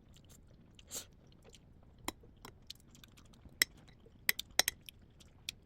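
Scattered sharp clicks and taps over a quiet background, about ten of them, coming closer together in the second half: small handling noises.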